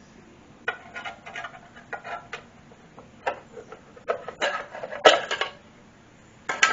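Irregular clatter of hard tools and parts being handled: a couple of dozen sharp clinks and knocks, loudest about four to five seconds in, and one more near the end.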